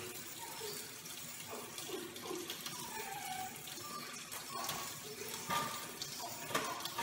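Tap water running into a stainless-steel sink as Mayo dissecting scissors are rinsed under the stream, with a few light clinks of the metal instruments near the end.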